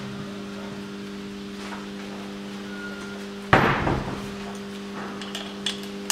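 A compression tester's gauge and hose being handled and unscrewed from a cylinder: one sharp knock about three and a half seconds in and a few light clicks near the end, over a steady low hum.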